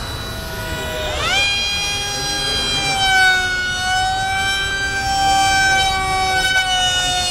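RC model jet in flight, its jet unit giving a loud high-pitched whine with a steep rise in pitch about a second in, then holding steady with a slight waver.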